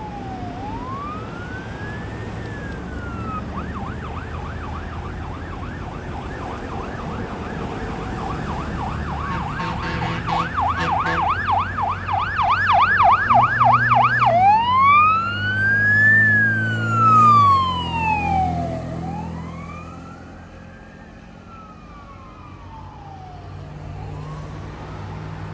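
Fire engine's electronic siren on an emergency response: a slow wail, switching about four seconds in to a fast yelp, then back to a wail about fourteen seconds in, over the truck's engine. It grows louder as the engine approaches, peaks as it passes, and fades off toward the end.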